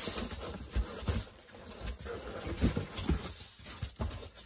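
Large corrugated cardboard box being opened by hand: flaps folded back and handled, with irregular soft thumps and scraping rustle.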